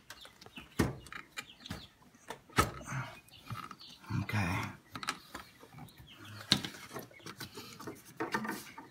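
Rubber engine hose being pushed and worked back onto its fitting by hand: scattered clicks, knocks and rubbing of rubber and plastic parts.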